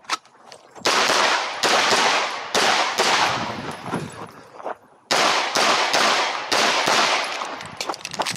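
Pistol shots from a SIG P320 compact with a ported slide fired at targets during a match stage. Two strings of three or four shots come roughly half a second to a second apart, with a pause of about two seconds between strings, and each shot is followed by a long ringing decay.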